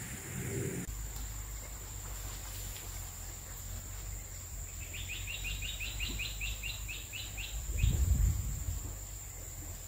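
A bird calls a quick run of about sixteen short rising notes, lasting roughly three seconds, over a steady low rumble. The low rumble swells louder near the end.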